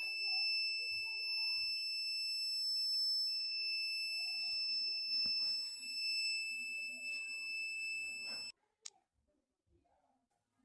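RO water purifier's buzzer sounding one long, steady, high-pitched warning beep. The beep is the unit's fault alarm, and it cuts off suddenly about eight and a half seconds in.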